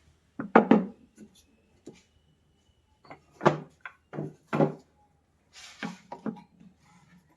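Wooden boards knocking and clattering as they are handled and set down: a handful of irregular knocks with a brief scrape of wood near the end.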